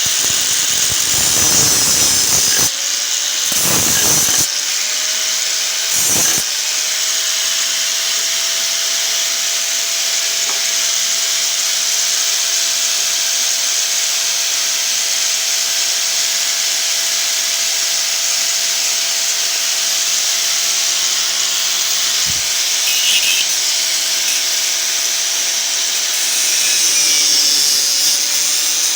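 Angle grinder with a cut-off wheel cutting through the steel shell of a refrigerator compressor: a steady motor whine over the hiss of the wheel on metal. The whine dips in pitch briefly near the end. A few knocks come in the first several seconds.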